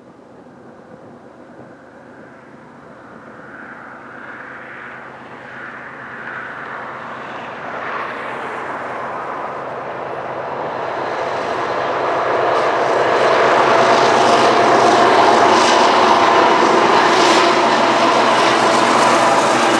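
Union Pacific freight train's diesel locomotives approaching, their engine noise growing steadily louder for about fourteen seconds and then holding loud as they draw near.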